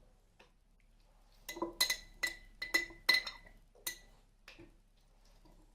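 Glass jar clinking as boiled lemon pieces are put into it: a quick run of about eight sharp knocks, each leaving a short ringing tone, then one fainter knock.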